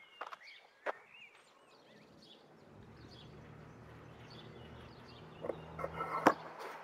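Open-air ambience: a few short bird chirps in the first second, then a low steady hum that builds from about two seconds in. Several clicks and knocks come near the end, the loudest about six seconds in.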